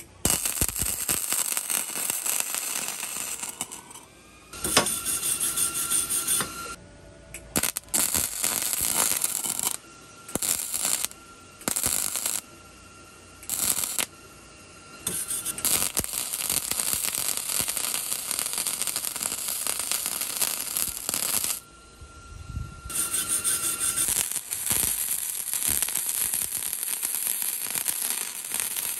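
Flux-core wire-feed welder's arc crackling and sizzling as a bead is run along steel tubing. It goes in stop-start runs, some about a second and others up to six seconds, with short pauses between them when the trigger is released.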